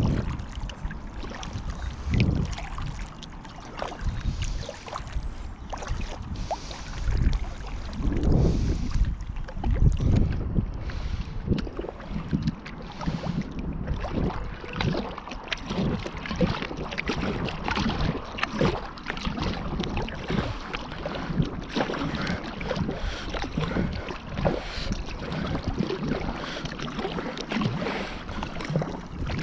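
Water splashing and lapping around a paddle board, with irregular knocks and low thumps against the board and wind on the microphone.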